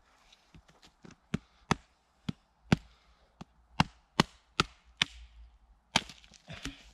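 Wood being chopped into small pieces: a dozen or so sharp wooden knocks at uneven intervals, roughly one every half second.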